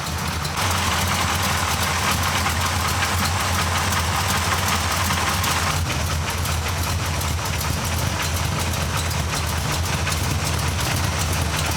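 A vehicle engine idling steadily, with an added hiss from about half a second in that stops at about six seconds.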